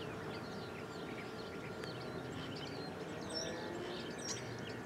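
Quiet background with faint, scattered bird chirps.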